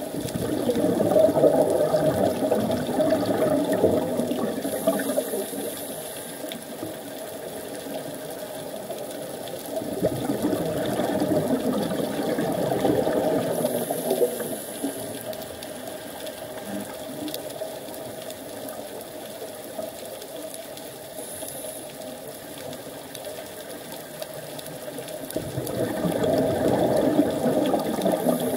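Scuba diver's regulator breathing underwater: three long, rumbling bursts of exhaled bubbles about ten to twelve seconds apart, with brief hissing inhalations in between.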